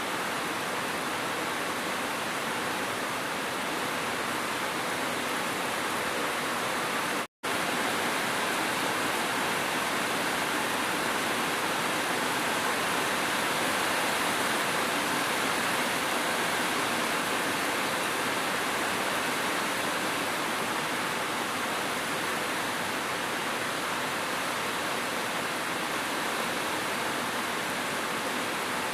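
Steady rain as an even, continuous hiss, with a momentary dropout to silence about seven seconds in.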